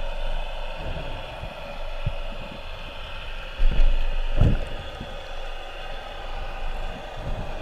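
Underwater sound through a GoPro's waterproof housing: a steady muffled hum with a few low dull thumps, the loudest a little past halfway.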